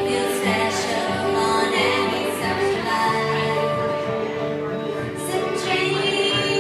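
Live acoustic string band playing a song: banjo, upright double bass and acoustic guitar together, with no break.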